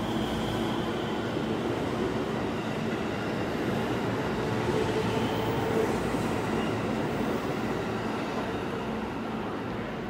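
JR West 223 series 1000 subseries electric train running past the platform as it pulls out: steady rolling and wheel noise with a faint motor whine, loudest about halfway through and easing off near the end as the last cars go by.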